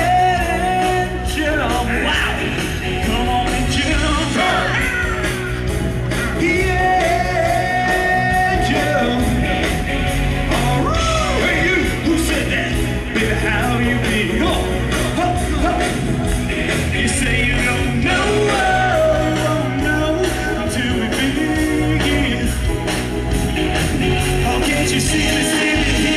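Loud rock-and-roll music with singing, played without a break through stage speakers.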